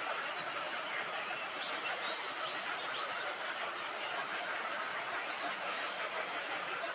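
Steady rushing background noise with a few faint bird chirps in the first half.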